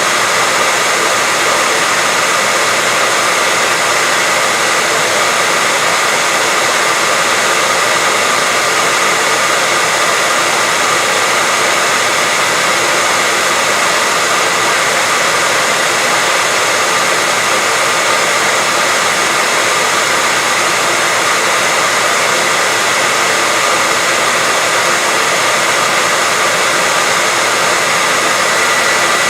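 Continuous white noise: a steady, unchanging hiss, strongest in the high range, with a faint steady tone running through it.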